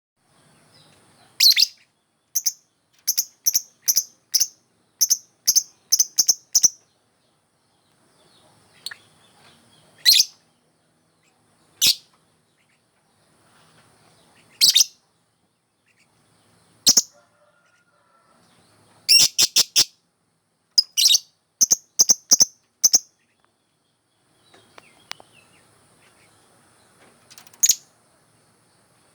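Lovebird calling in short, sharp, high-pitched chirps, some single and some in quick runs: a run of about ten a few seconds in, and a fast cluster about two-thirds of the way through, with pauses of a second or more between groups.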